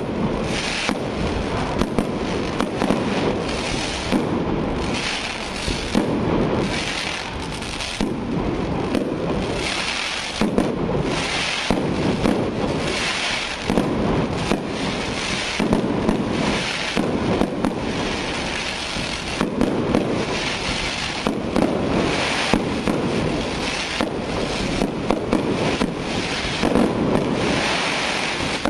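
Aerial fireworks display: shells launching and bursting overhead one after another, a sharp bang about every second with crackling stars between the bursts.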